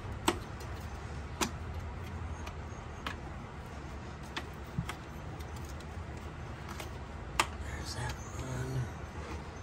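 Sharp, separate clicks and taps, about six in all, as parts are fitted by hand on the plastic intake manifold of a Jeep Wrangler's 3.6 L Pentastar V6, over a steady low hum.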